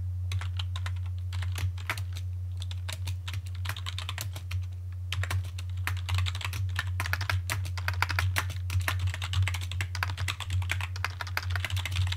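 Typing on a computer keyboard: a quick run of key clicks with a short lull about five seconds in, over a steady low hum.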